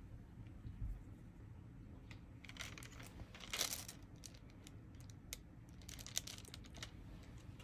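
Quiet, scattered clicks and taps of a diamond-painting drill pen picking up resin drills and pressing them onto the sticky canvas, with a short plastic rustle about three and a half seconds in.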